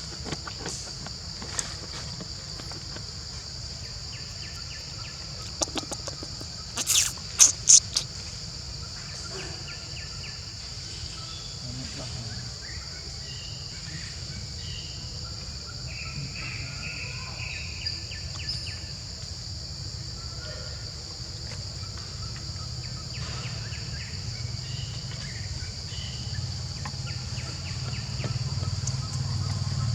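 Steady high-pitched drone of insects with a low outdoor rumble beneath. About seven seconds in, a quick run of four loud sharp clicks, and a few faint short chirps around the middle.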